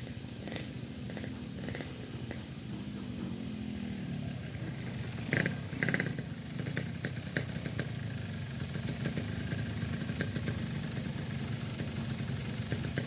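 Motorcycle engines running, with a falling engine note in the first few seconds. Two short, sharp sounds about five and a half seconds in are the loudest moment.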